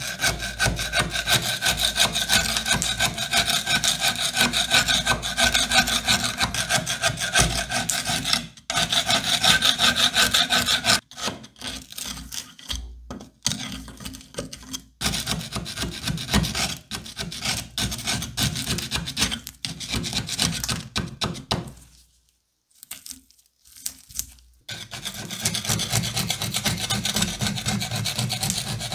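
Flat-head screwdriver scraping thick, rough rust off a steel cleaver blade in rapid rasping strokes. The strokes thin out to separate scrapes about halfway, stop briefly near the end, then come thick and fast again.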